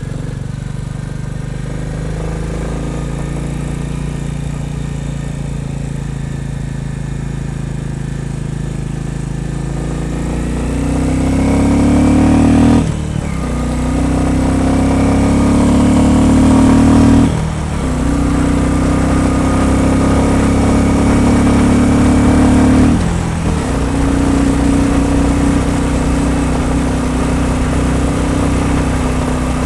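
Royal Enfield Bullet 350's single-cylinder engine, with its air intake covers removed, running steadily on the move. From about ten seconds in it accelerates, the pitch rising, with three brief drops in level as gears are changed.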